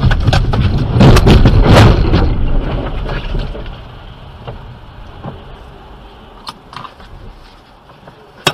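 A lorry passing very close alongside: a loud rumble with knocks and clatter for about three and a half seconds, which then dies down to the quieter noise of the car driving on a wet road, with a few scattered clicks.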